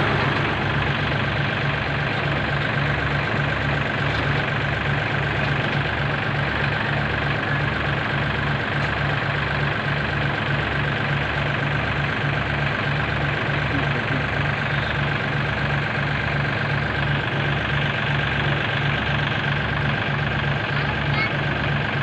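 Diesel engine of farm machinery running steadily without revving, a regular low throb pulsing a couple of times a second.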